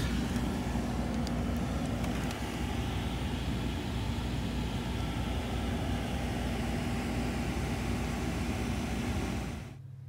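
Air conditioner in a pickup sleeper running with its compressor on: a steady rush of fan air over a low hum. Near the end it cuts off abruptly, leaving a quieter steady motor hum.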